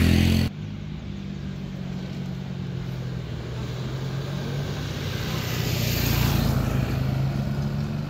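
A vehicle engine running steadily, with a vehicle passing by and growing louder about six seconds in, then fading a little.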